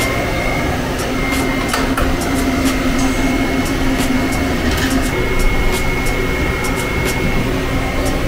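Steady machine hum with a thin high whine that drops out and comes back, and scattered light clicks of tools and cables being handled.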